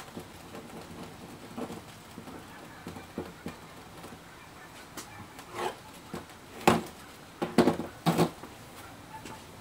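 A few sharp knocks and clatters, sparse at first and loudest in a quick cluster about two-thirds of the way through, over a faint low hum.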